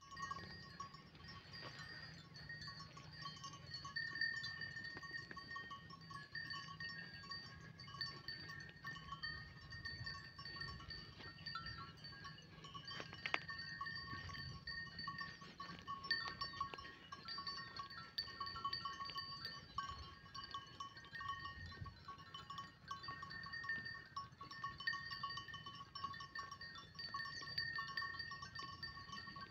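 Sheep of a grazing flock bleating, over a steady high-pitched ringing tone that breaks off and returns every few seconds.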